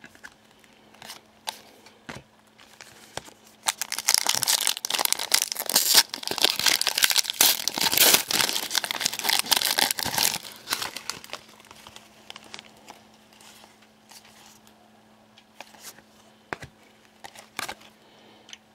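A foil trading-card pack being torn open, its wrapper crinkling loudly for about six seconds from around four seconds in. Scattered light clicks of cards being handled come before and after.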